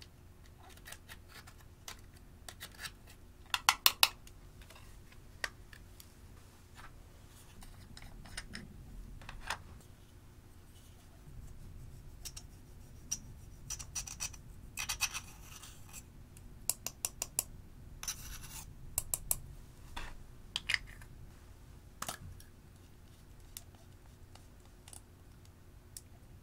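A small metal tool scraping and prying pressed eyeshadow out of plastic palette pans and a powder pot, with many sharp clicks and taps of metal on plastic. There is a loud cluster of clicks about four seconds in and short stretches of crumbly scraping later on.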